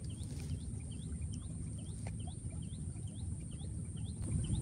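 A small bird repeating a short rising chirp about twice a second, over a steady high-pitched whine.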